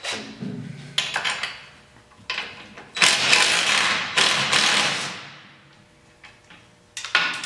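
A cordless power driver runs in short bursts as it backs bolts out of an ATV's front frame. Its two longest runs are loud, about a second each, near the middle; shorter bursts come before them and near the end.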